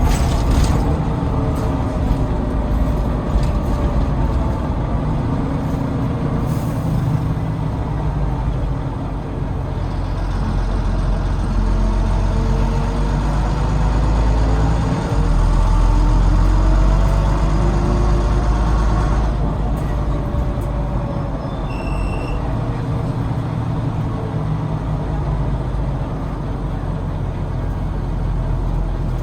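Volvo B9TL double-decker bus's Volvo D9B diesel engine running under way, heard from inside the bus, its note rising and falling through the gears. From about a third of the way in to about two-thirds of the way, it accelerates and an extra noise rides over the engine; the uploader can't place it and suspects the gearbox, cooling fan or axles. A brief high beep comes near three-quarters of the way in.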